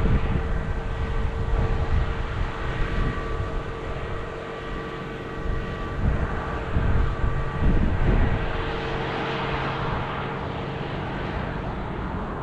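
Heavy farm harvest machinery running: a steady engine drone with a constant whine over a low rumble, and a few louder rumbles past the middle.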